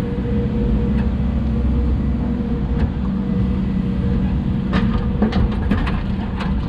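Hidromek 140 excavator's diesel engine running steadily at working revs. In the last two seconds a quick series of sharp knocks and clatters stands out over it.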